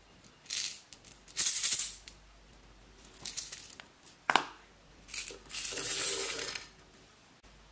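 Small pink beads rattling inside a clear plastic capsule, shaken in three short bursts, with a sharp click a little after four seconds. Near the end comes a longer rattling stream as beads are poured out.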